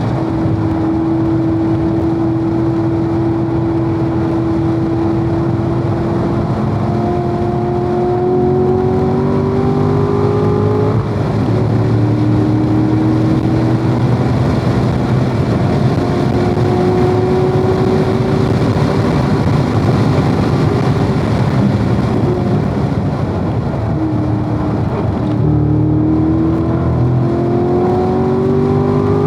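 Corvette V8 engine heard from on board at speed on a race track, pulling steadily with its pitch climbing, a sudden drop about a third of the way in as it shifts up, and a break near the end before it climbs again, over steady wind and road noise.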